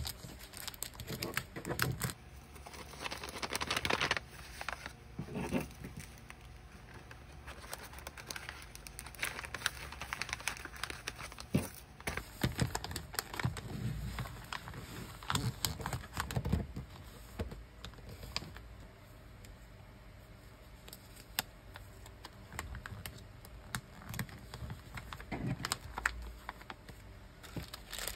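Plastic packaging bags and wrapping being handled by hand on a table: irregular crinkling and rustling of thin plastic, with small taps and clicks as items and stickers are pressed and set down.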